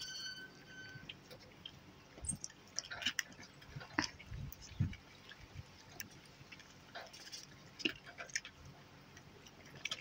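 Raccoons and a coati eating watermelon chunks from a plastic tray: faint, scattered wet chewing and small clicks. A thin high tone lasts about a second at the very beginning.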